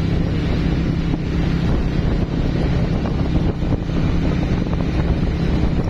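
Wind buffeting the microphone on a moving motorcycle, over the steady hum of the bike's engine at cruising speed.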